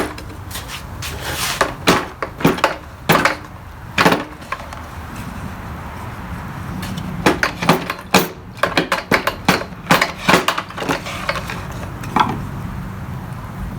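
Hand tools and metal trimmer parts clicking and knocking irregularly as someone works at gripping and pulling the drive cable out of a line trimmer's shaft, in two busy spells with a pause between.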